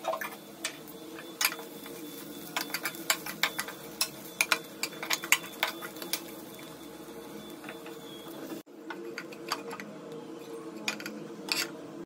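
A spatula scraping and tapping against a nonstick kadai as dry bitter-gourd masala is stir-fried: irregular clicks and scrapes, busiest in the first half, over a steady low hum.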